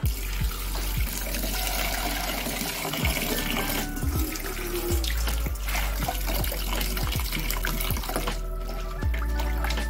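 Tap water running into a steel bowl of raw chicken pieces in a stainless steel sink, splashing as the pieces are washed by hand, with a few light clinks of steel bowls.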